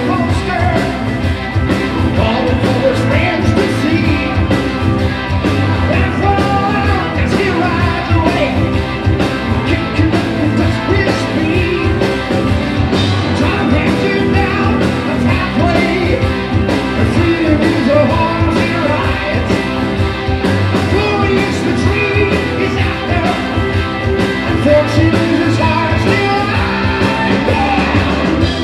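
Hard rock band playing live through a PA: a male singer over electric guitar, bass guitar and a steady drum-kit beat.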